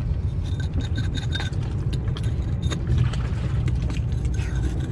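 A flat metal blade scraping muck and growth off a hawksbill sea turtle's shell, giving short, irregular scrapes and clicks, over a steady low rumble.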